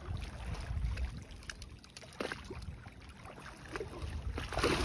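Wind rumbling on the microphone over water lapping at a jetty, with a few small knocks. A louder rush of noise starts near the end.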